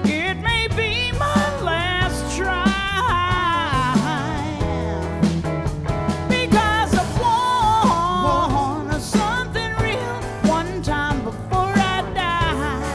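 A woman singing lead with a live band, her voice held in long, wavering notes with strong vibrato over a steady bass line and drum beats.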